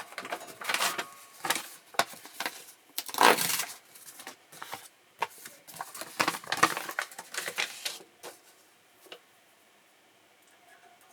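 Handling noise: a run of irregular clicks, knocks and rustles for about eight seconds, loudest around three seconds in, then it goes quiet.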